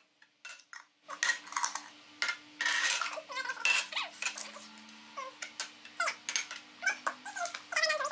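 Glass jars and their metal lids clinking and rattling as they are handled on a stone countertop, along with some crinkling. From about four seconds in, an animal makes high, wavering whines over the clatter.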